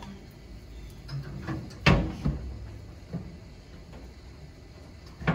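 Steel door of a vertical wood-fired smoker being shut: a loud metal clank about two seconds in with a second knock just after, then lighter knocks as the latch is worked and another knock right at the end.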